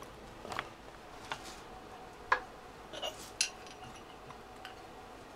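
Scattered light clicks and clinks of small metal tools and parts being handled on a workbench, with a sharper knock about two seconds in and another about a second later.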